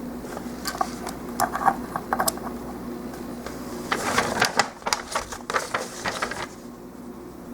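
Hard plastic model-kit parts clicking and clattering as they are handled and fitted together: a few sharp clicks in the first couple of seconds, then a denser patch of clicking and rustling from about four to six and a half seconds in. A steady low hum runs underneath.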